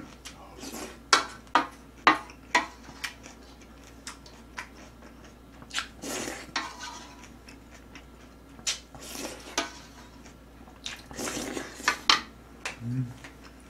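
A metal spoon clinking and scraping against a stainless-steel pot as rice in soup is scooped up and eaten, in sharp irregular clicks with a few longer scraping sounds.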